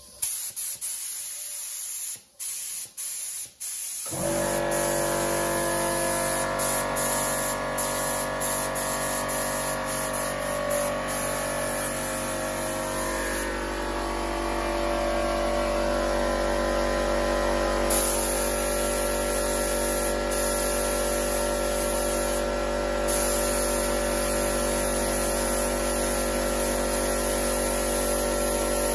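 Gravity-feed air spray gun hissing in short trigger pulls as paint is test-sprayed onto cardboard. About four seconds in, an air compressor starts and runs steadily, its hum under the continuous hiss of the gun.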